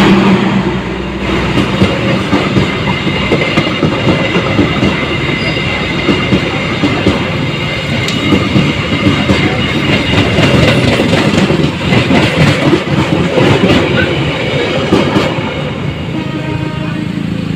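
A passenger train rolling past at speed, its wheels clattering over the rail joints in an irregular run of clicks over a steady rumble.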